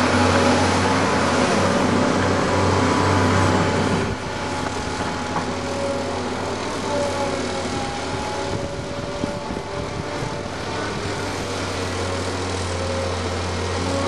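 Tracked excavators' diesel engines running as they dig: a steady engine drone with a whine that comes and goes. The sound drops a little about four seconds in.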